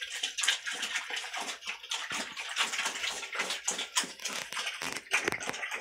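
Wild boar sows eating wet mash from a concrete trough: irregular wet slurping, smacking and chomping.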